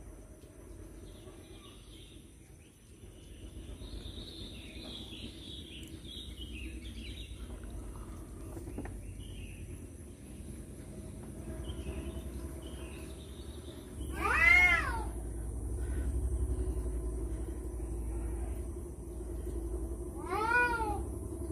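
Tomcat giving two loud, drawn-out meows that rise and fall in pitch, a longer one about two-thirds of the way in and a shorter one near the end: a tom calling in a standoff with a rival over a female.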